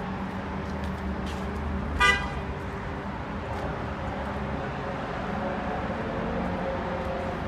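A car horn gives one short toot about two seconds in, over steady city traffic noise.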